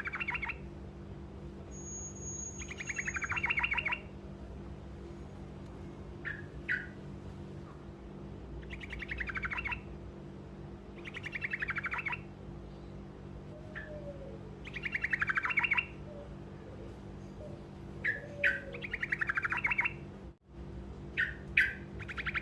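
A trucukan (yellow-vented bulbul) singing short rolling trills of about a second to a second and a half each, repeated every few seconds with single short chips between them. A steady low hum runs underneath.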